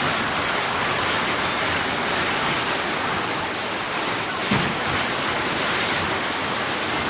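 Heavy rain pouring down in a storm, a steady dense hiss. A brief thump about four and a half seconds in.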